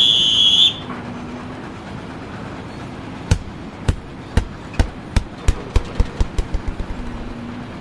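A loud high steady beep that cuts off under a second in. A few seconds later comes a run of about fifteen sharp knocks that come faster and faster.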